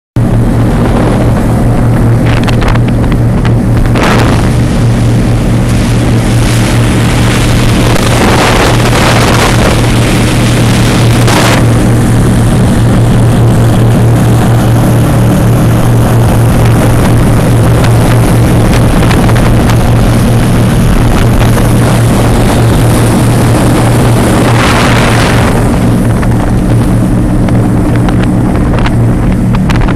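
Triple engines of a Cigarette 42 Revolution offshore powerboat running at speed, a loud, steady drone heard from onboard. A rush of wind and water noise swells and fades several times over the engines.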